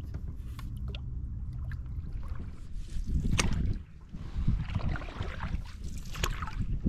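Canoe paddle strokes in calm river water: splashing and trickling water from the blade, with a few sharp knocks, starting about halfway through. A low rumble runs underneath.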